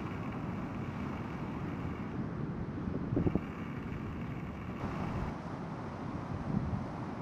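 Wind buffeting the microphone over the low rumble of breaking surf, with a stronger gust about three seconds in.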